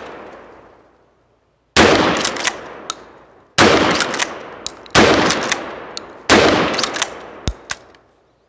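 Charles Daly 301 12-gauge pump shotgun fired four times, about one and a half seconds apart. Each loud shot is followed by the short clacks of the pump action being racked. The action is still wearing in on the new gun, which the owner puts down to its cerakote finish.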